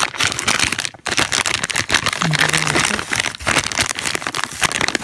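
Clear plastic packaging bag crinkling and rustling as it is handled, with a short vocal hum about two and a half seconds in.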